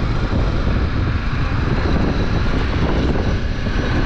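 Motorcycle riding along at a steady speed: wind rushing over the microphone over the engine's steady drone.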